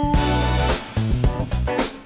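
Funk instrumental music with bass, drum kit and guitar playing a tight repeating groove.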